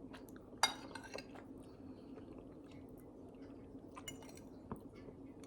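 Faint clinks of cutlery on a dish while eating, a few scattered clicks with the sharpest one about half a second in.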